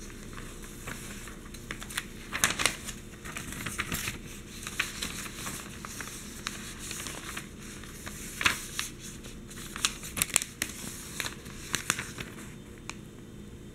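Newspaper pages handled and turned by hand: newsprint crinkling and rustling, with a run of sharp crackles that are loudest about two and a half seconds in and again about eight and a half seconds in.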